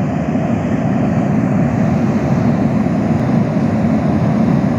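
White noise from a small speaker, heard through the LandCruiser 79's stock floor insulation in an acoustic test funnel: a steady, muffled rushing hiss that does not change.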